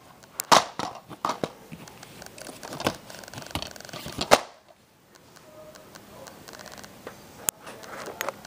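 Plastic DVD cases being handled on a floor: a quick run of sharp clacks and knocks, then softer scratchy handling noise with one more sharp click near the end.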